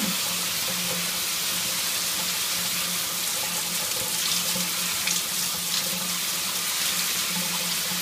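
Shower running in a tiled stall: a steady hiss of water spray.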